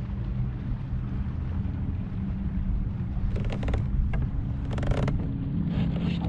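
Steady low drone of motorboat or jet-ski engines on the water, with wind rumble on the microphone. Two short bursts of rapid ticking come about three and a half and five seconds in.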